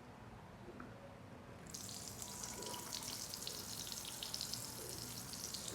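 Water running from a tap into a sink: a splashing hiss that starts suddenly about two seconds in and keeps flowing.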